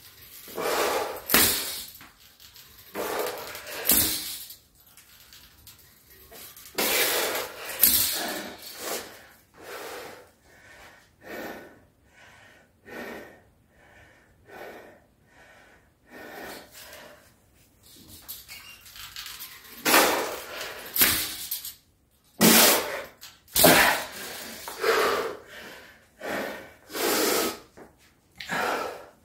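A man breathing hard and out of breath after a heavy power-twister set: loud, irregular gasps and forceful exhales a second or two apart, with louder clusters near the start and again about two-thirds through.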